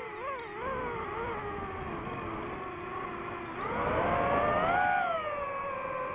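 DJI FPV drone's motors and propellers whining, the pitch following the throttle. It drops and wavers in the first second, holds low, then climbs sharply about three and a half seconds in and eases back down about a second before the end.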